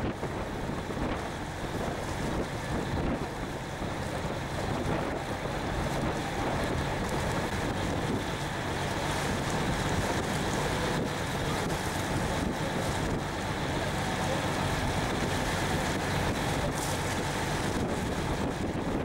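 Ferry underway: a steady low engine drone under wind buffeting the microphone and water washing past the hull.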